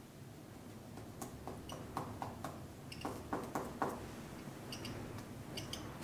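Faint, irregular tapping and clicking, about a dozen sharp taps in a few loose clusters, that the listeners place inside the wall.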